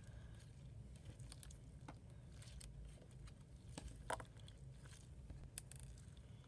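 Faint scattered clicks and small squishes of hands kneading and spreading slime studded with beads, over a low steady room hum.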